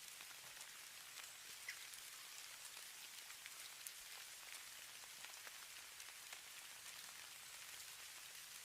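Snowfall ambience: a faint, steady hiss with many fine, scattered ticks of flakes landing.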